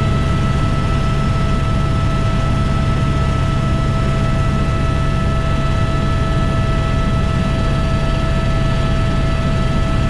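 Helicopter in flight, heard from inside the cabin: a loud, steady low drone of rotor and engine with a constant high whine over it.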